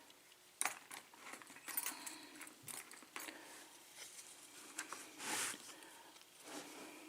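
Faint clicks and scrapes of small metal lock-picking tools, a tension wrench and pick, being fitted into the keyway of a clear plastic cutaway pin-tumbler lock, with a longer scraping rustle about five seconds in.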